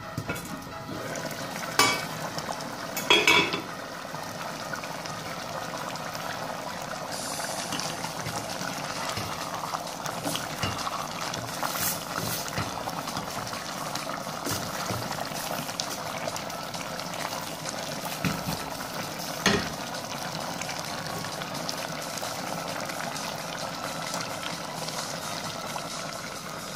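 Tomato-sauce stew of chicken liver and gizzard simmering and bubbling in a stainless steel pot. A glass pot lid clanks twice about two and three seconds in. A silicone spatula stirs the stew, with one knock against the pot later on.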